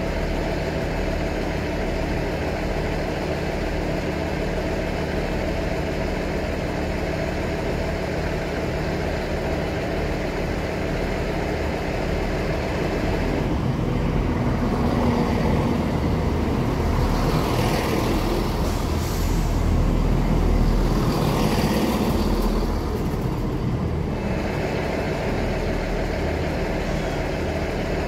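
A ScotRail diesel train idles steadily throughout. About halfway through, a second diesel train runs past close by for about ten seconds, louder, with its engines and wheels on the rails and high-pitched noise swelling twice, before the steady idle is left alone again.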